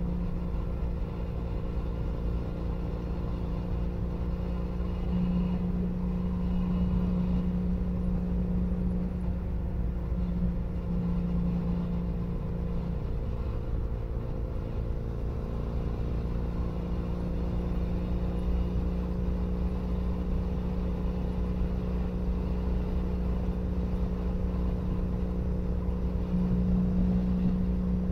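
Exhaust note of a 2012 Triumph Bonneville SE's air-cooled parallel twin through a British Customs Predator exhaust, picked up close to the pipe. It runs at a steady cruising speed, the note swelling slightly a few times with small throttle changes.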